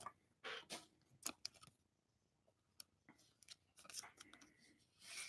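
Faint, scattered clicks and rustles of football trading cards being handled, with a small cluster about four seconds in.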